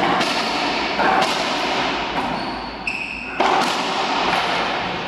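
Racquetball rally: a series of sharp ball strikes off racquets and the court walls, each ringing out in the enclosed court's echo. A short sneaker squeak on the hardwood floor comes about three seconds in.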